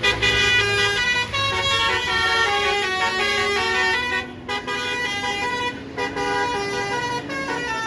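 A bus's basuri air horn playing a telolet melody: a quick run of stepping horn notes, broken by short gaps a little past four seconds in and at about six seconds.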